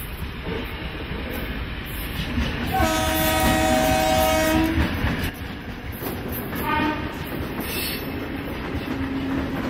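Train horn sounding one long blast of about two seconds, then a short blast about two seconds later, over the steady rumble of a train running on the rails.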